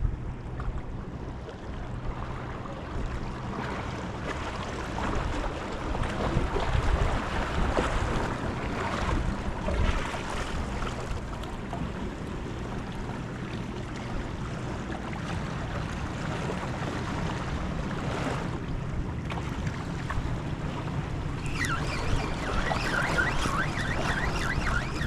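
Wind gusting across the microphone over the wash of waves at an inlet shoreline, under a faint steady low hum.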